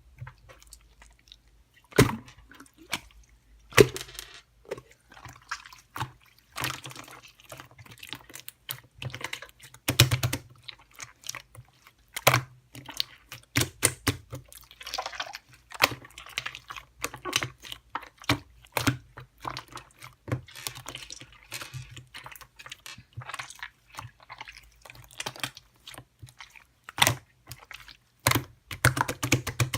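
Irregular close-up clicks and taps, some sharp, with softer noise between them.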